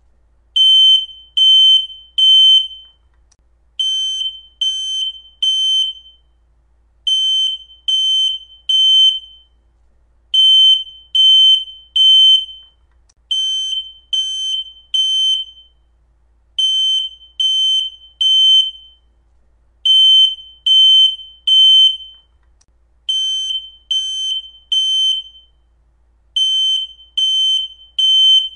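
Smoke detector alarm going off in the three-beep temporal pattern: three loud, high-pitched beeps, then a pause, repeating about every three and a third seconds. This is the standard pattern a smoke alarm sounds when it detects smoke.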